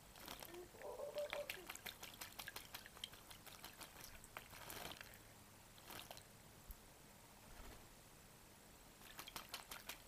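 Parrot bathing in a shallow terracotta bird bath: a run of small splashes and drips from wings dipping and shaking in the water, easing off midway and picking up again near the end.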